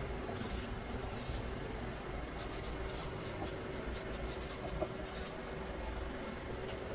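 Felt-tip marker scratching across paper: two longer strokes in the first second and a half, then many quick short strokes as words are written, over a steady low hum.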